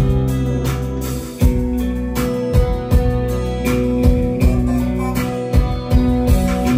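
Live band music: guitar over held bass notes and a steady drum beat.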